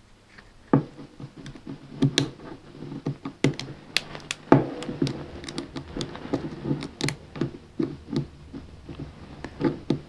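Irregular metal clicks, taps and scrapes of a lock pick and tension wrench working the pins in the keyway of a small brass padlock, starting about a second in.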